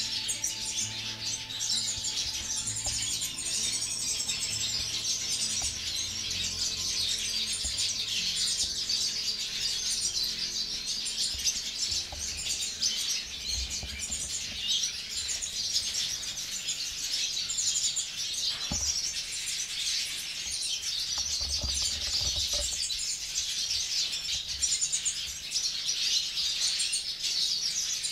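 Many caged siskins twittering and chirping continuously in a dense, overlapping chorus of short high calls.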